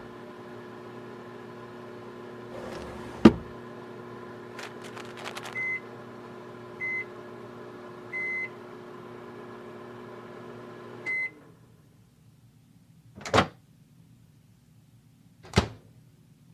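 Microwave oven running with a steady hum, heating frozen lasagna. There is a sharp click about three seconds in, then a few short high beeps, and the hum cuts off with a last beep about eleven seconds in. Two sharp knocks follow near the end.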